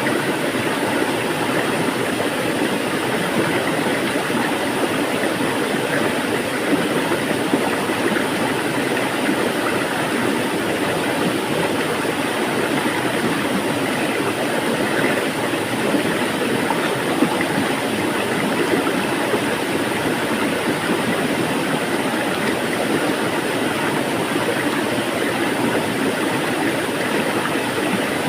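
Flowing water making a steady, even rushing sound without pauses or changes.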